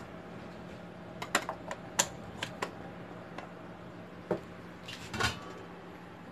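Light clicks and knocks of pots and utensils being handled, a quick run of taps in the first few seconds and a couple more later, over a steady low hum.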